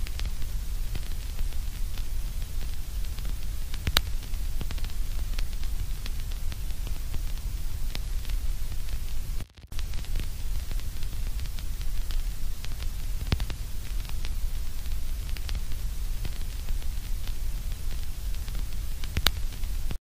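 White-noise static: a steady hiss with a deep rumble underneath, sprinkled with small crackles and two louder clicks. It cuts out for a moment about halfway through.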